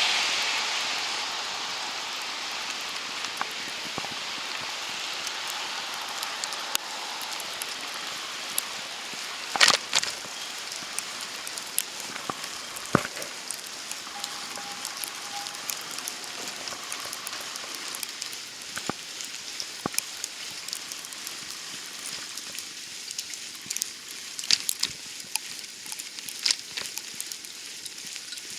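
Snowstorm ambience: a steady hiss with scattered sharp ticks and taps, falling wet snow. A louder hiss fades out over the first couple of seconds.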